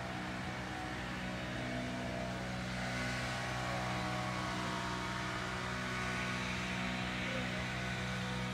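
Steady mechanical drone of an engine or motor, with several held tones, getting a little louder about three seconds in.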